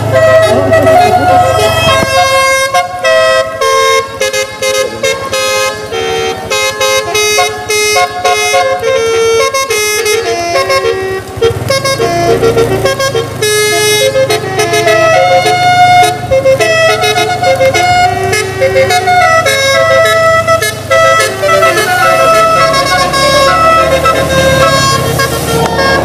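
A bus's telolet musical air horn playing a long run of quick notes that change pitch like a tune, over the steady hum of the bus engine running.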